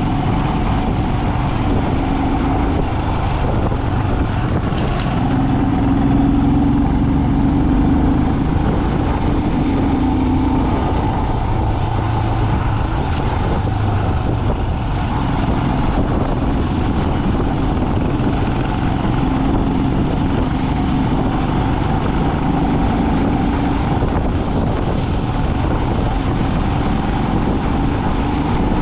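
A vehicle driving on a mountain road: steady engine and road rumble, with a low hum that rises and falls slightly now and then.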